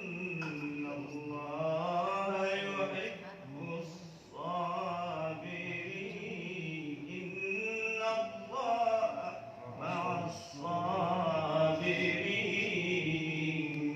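A man's voice chanting in a melodic Islamic recitation style, drawing out long wavering notes in several phrases with short breaths between them.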